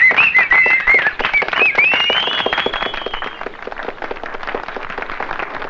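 A crowd noise of shrill cries and a whistle over a rapid patter of sharp cracks. The whistle rises and holds about two seconds in. The cries die away after about three seconds, while the cracks thin out and grow quieter.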